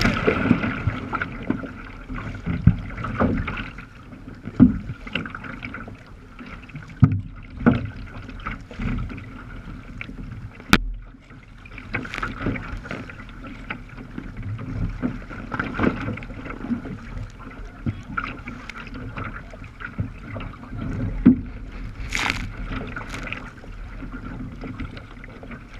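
Choppy seawater splashing and slapping against a sea kayak's bow and hull close to the microphone, in irregular surges every second or two, with a single sharp click about eleven seconds in.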